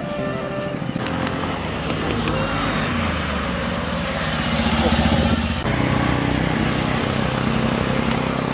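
A motor vehicle's engine running steadily, its note shifting about two-thirds of the way through.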